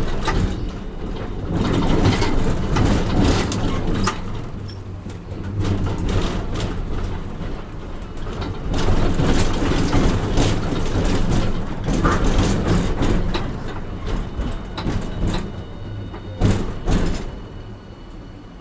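Hiroshima Electric Railway 1000-series Green Mover LEX low-floor tram running, a rumbling noise with a low steady hum and scattered knocks and clicks, growing quieter near the end.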